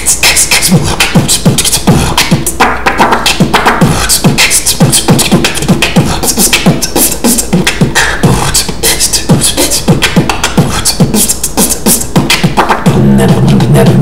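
A beatboxer performing a fast routine with the mouth alone: rapid vocal kick drums, snares and clicking hi-hats. Near the end a steady low bass tone comes in under the beat.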